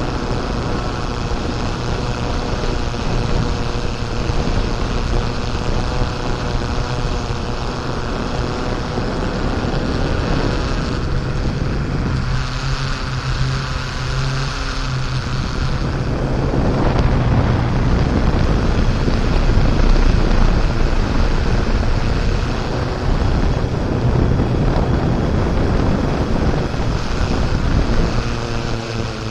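Off-road vehicle's engine running while driving, with a steady drone under a broad rushing noise that grows louder in the second half.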